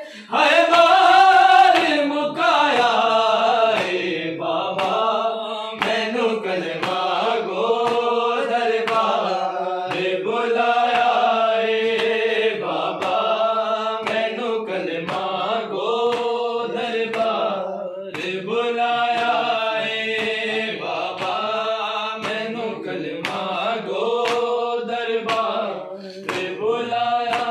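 Group of men singing a Punjabi noha unaccompanied, several voices chanting the lines together, with sharp percussive beats cutting through the singing.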